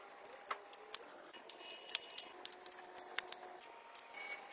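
Scattered light clicks and small rattles of a LiPo battery pack and its yellow plastic XT60-style plugs being handled and fitted together.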